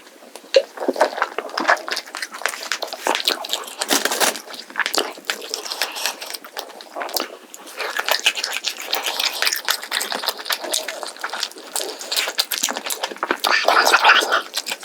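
Close-miked eating sounds: chewing, biting and smacking on roast chicken and crisp scorched rice, a dense run of small wet clicks and crackles.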